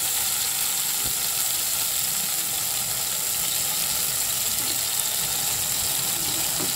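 Boiled Indian olives frying in hot oil in a stainless steel kadai, a steady sizzle.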